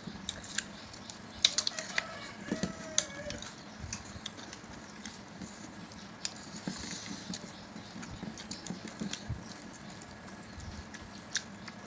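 Eating by hand: chewing and mouth clicks, with fingers picking through rice and chicken on plates, giving a run of small irregular clicks and taps.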